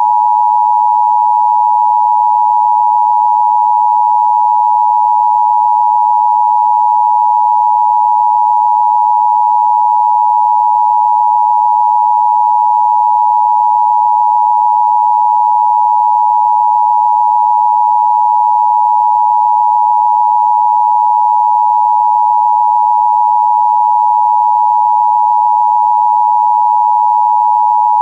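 Emergency Broadcast System attention signal: a steady, unbroken two-tone alert (853 Hz and 960 Hz sounded together), held at a constant loud level.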